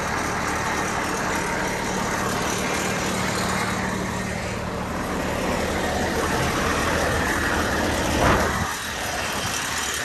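Diesel engine of a volumetric concrete truck idling, heard from beside the truck, steady, with a brief louder swell about eight seconds in.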